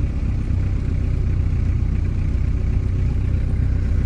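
Vehicle engine and tyre rumble heard from inside the cab while driving across dry, flat ground: a steady low rumble with no change in pace.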